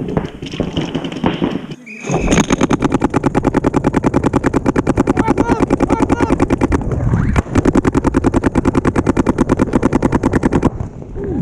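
Paintball marker firing a long rapid string, about a dozen shots a second, starting about two seconds in, with a brief break midway and stopping shortly before the end. Voices shout faintly under the shots.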